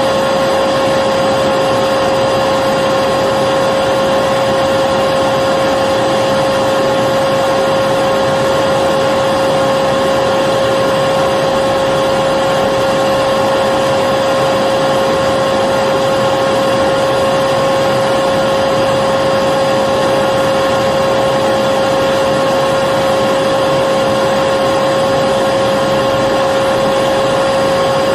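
Electric vacuum cleaner running steadily, its motor giving a constant hum over a rushing airflow.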